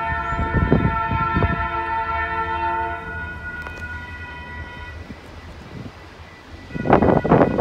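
Approaching diesel freight locomotive's air horn sounding a long chord, which fades out about three seconds in, then blows again near the end amid louder noisy bursts.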